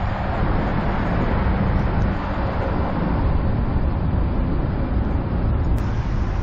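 Steady rumble of highway traffic crossing the Brent Spence Bridge overhead, heard from the river below.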